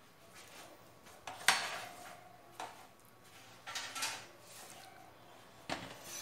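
A few separate knocks and clatters of small hard objects being moved about and set down on a workbench, the loudest about one and a half seconds in.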